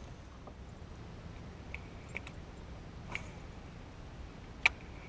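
A few faint, sharp clicks and taps, the loudest near the end, over a low steady rumble.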